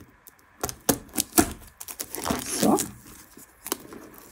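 Plastic shrink wrap around a cardboard box being torn open and pulled back by hand: a run of sharp crinkles and crackles starting under a second in.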